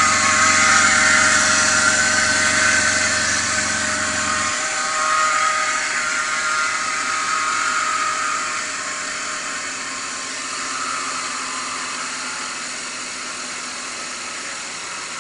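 BMW E39 525i's straight-six engine running with a steady whine from a defective belt idler pulley. A low hum cuts off about four and a half seconds in, while the higher whine carries on and slowly fades.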